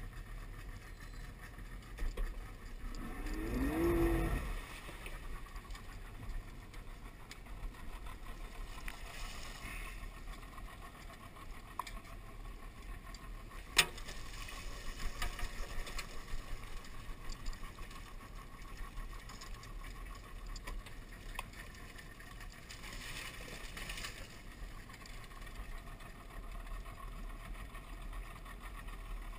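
Outboard motor on an aluminum skiff running slowly with a steady low rumble, with a brief rising tone about four seconds in. About halfway through, a sharp knock and then a few seconds of quick rattling as a crawfish trap is emptied into the boat's sorting box.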